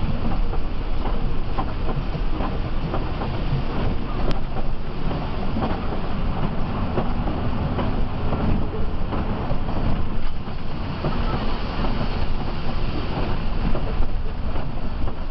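Inside the cabin of a Mercedes-Benz OH 1526 coach driving on a rain-soaked road: a steady low rumble of engine and wet-tyre noise, with frequent small knocks and rattles.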